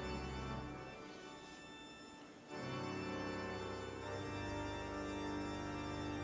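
Background music of slow, sustained chords, with a new, fuller chord coming in about two and a half seconds in.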